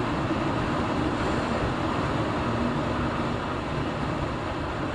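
Steady vehicle noise, engine and road running evenly on the move.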